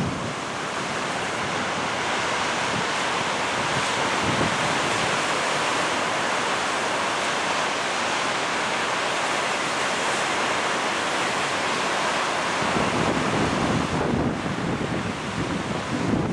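Ocean surf breaking and washing up a sandy beach: a steady rushing. Wind buffets the microphone with a low rumble in the last few seconds.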